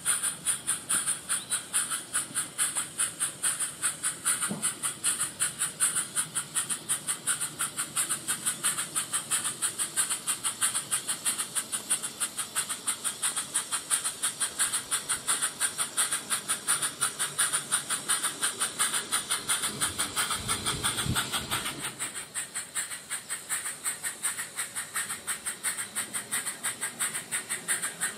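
Live-steam garden-scale Hunslet Waril Class locomotive chuffing steadily as it runs, its exhaust beats sharpened by a Summerlands Chuffer, at an even rate of about three beats a second.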